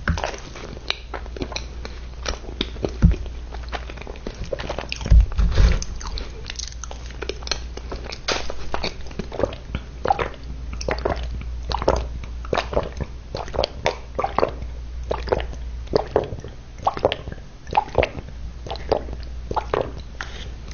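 Close-miked mouth eating sounds: chewing and smacking on moist chocolate cake with icing, a run of short wet clicks and squishes. A few low thumps come about 3 and 5 seconds in, over a steady low hum.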